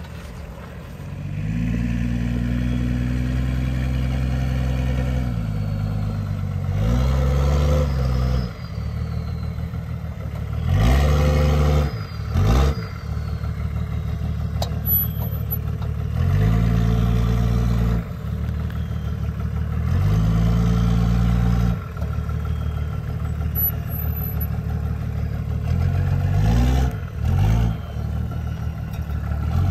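Diesel Pinzgauer 718 six-wheeler's engine working as it crawls over dirt mounds. It holds steady stretches, then surges in pitch and drops back several times as the throttle is opened and eased, with a few quick revs near the middle and near the end.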